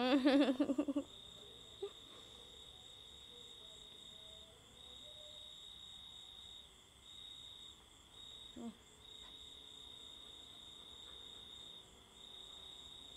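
Crickets chirping in a steady, continuous high trill. The loudest thing is a short run of pitched vocal cries in the first second, and a single brief falling cry comes later.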